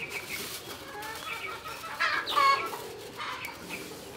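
Chickens clucking, with one louder, drawn-out hen call about two seconds in.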